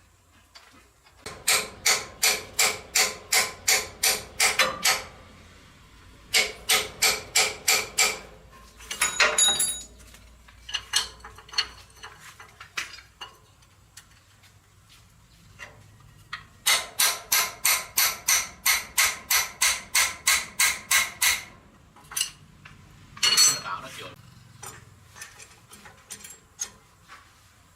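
Hammer striking metal in quick runs of ringing blows, about three a second, with single knocks between the runs.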